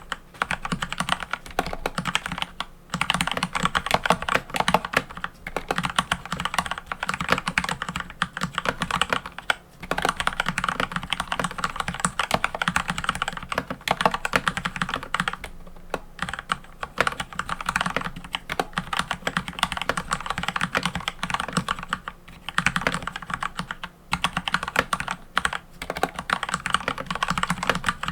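Fast continuous typing on a mechanical keyboard, a dense run of keystroke clacks broken by brief pauses every several seconds.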